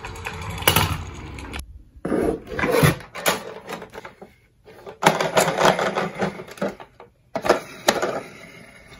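Small die-cast toy ambulance rolling down a sloped laminated chipboard board, with a sharp click less than a second in. After a short break come several bursts of plastic clattering and rattling from a large plastic toy ambulance being handled in a cardboard box.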